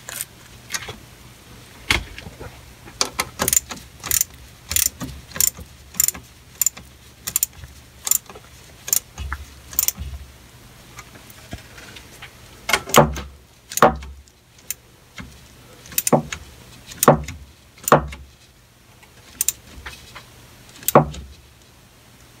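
Stainless steel worm-drive hose clamps being tightened by hand with a small driver: a run of sharp metallic clicks, about three a second, then slower, louder knocks about a second apart in the second half.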